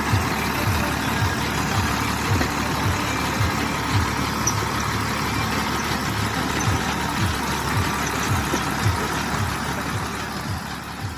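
Farmtrac 60 tractor's diesel engine working under load as it pulls a peanut digger through dry soil, with a regular low thud about twice a second. The sound fades away near the end.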